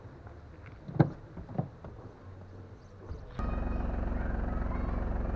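Two sharp knocks about a second in, then a car engine running steadily, cutting in suddenly after about three and a half seconds.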